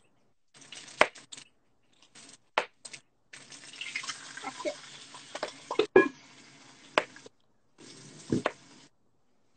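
A stainless steel pot and lid knocking and clinking several times, with a steady rushing hiss for about four seconds in the middle.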